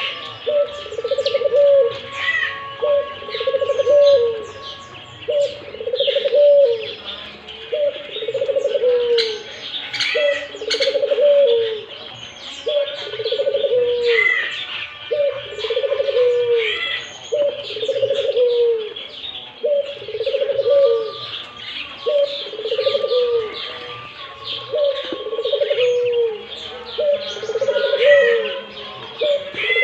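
A puter (domestic ringneck dove) cooing over and over in a steady rhythm, about one coo every second and a half: the bird is in full, constant song. Small birds chirp higher up behind it.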